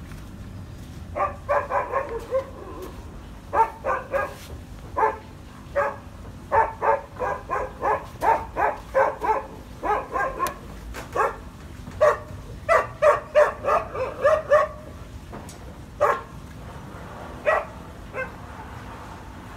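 A dog barking repeatedly in quick runs of short, sharp barks, with a few pauses, over a steady low hum.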